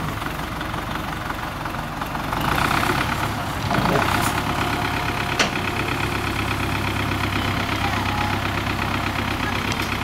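Tractor's diesel engine running steadily, picking up about two and a half seconds in and holding there as its hydraulics tip up the log-laden dump trailer. A single sharp knock about halfway through.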